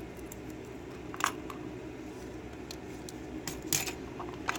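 A few light, sharp clicks and taps of small metal lock parts being handled, over a steady low background hum.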